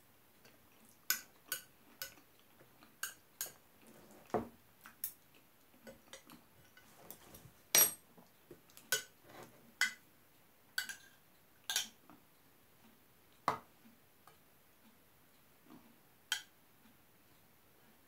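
Metal spoon clinking and scraping against a bowl as food is stirred and scooped: about twenty sharp clinks at irregular intervals.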